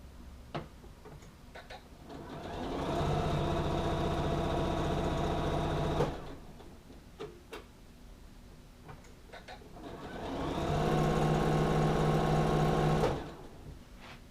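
Electric sewing machine stitching through blanket layers in two runs, each speeding up over about a second, running steadily, then stopping abruptly; small clicks from handling the fabric in the pauses between.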